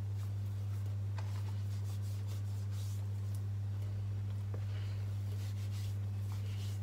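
Hands rubbing tapioca starch over small wet short mackerel, faint scattered rubbing and handling sounds, over a steady low hum.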